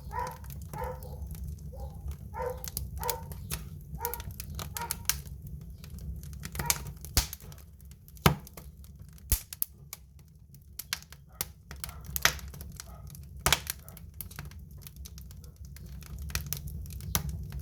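Wood fire burning in a fireplace or stove: irregular crackles and sharp pops over a low steady rumble. During the first few seconds a faint pitched sound repeats a few times a second beneath the crackling.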